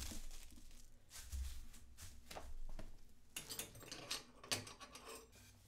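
Faint rustling of paper sewing-pattern sheets with scattered light clicks and knocks, as the pattern is handled and a long wooden yardstick is fetched and laid on the worktable.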